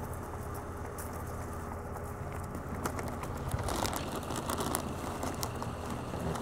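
Wild turkeys pecking at cereal, a run of quick clicks and taps that grows busier about three seconds in, over a steady low hum.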